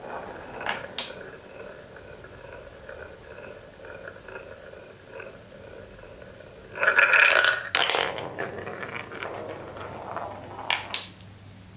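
Wooden ball rolling round and round a wooden funnel bowl with a steady rumbling whir. About seven seconds in it drops through the centre hole with a loud wooden clatter and rolls on along a wooden track, ending in a couple of sharp wooden clacks near the end.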